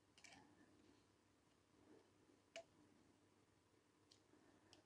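Near silence with a few faint clicks, the clearest about two and a half seconds in: metal tweezers touching the brass plates and parts of a clock movement as the pallet is fitted between the plates.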